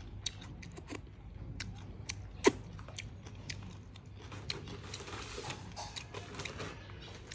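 Close-up chewing of crispy fried bullfrog: wet mouth clicks and crunches, with one sharp crunch about two and a half seconds in and a denser stretch of crackly chewing a little past the middle.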